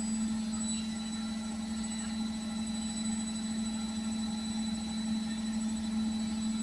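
Beko washing machine running with a steady motor hum.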